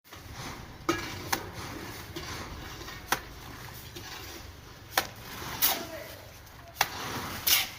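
About seven sharp knocks or taps at uneven intervals over a low steady background, with faint voices now and then.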